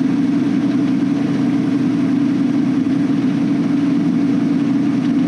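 Semi truck's diesel engine and road noise droning steadily inside the cab at highway speed.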